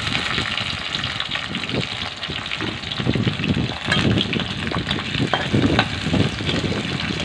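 Sliced onions frying in hot oil in a kadai, a steady sizzle with fine crackles. Partway through, a spatula starts stirring them, scraping against the pan in repeated strokes.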